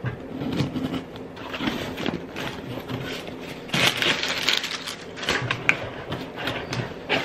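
A cardboard shipping box being unpacked by hand: tape slit with a blade, the flaps rustling and clicking open, and crumpled brown packing paper crinkling as it is pulled out, loudest about four seconds in.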